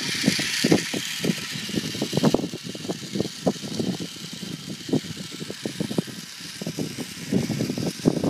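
Small radio-controlled toy car with homemade paddle tyres driving off across sand. Its motor and gears whir, louder for the first two seconds or so and then fainter as it pulls away, over irregular low gusts of wind on the microphone.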